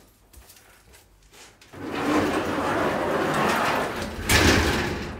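Up-and-over metal garage door being pulled down: after a near-quiet start, a rolling, rumbling scrape for about two and a half seconds, ending in a loud bang as the door shuts near the end.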